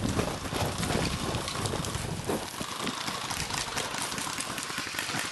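A player moving quickly over dirt and gravel: footsteps, with gear and clothing rustling and rattling close to the microphone, and dense fast clicking through the second half.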